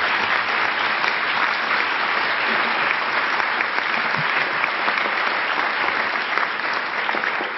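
A large audience applauding: many hands clapping together in a steady, dense wash, easing off slightly near the end.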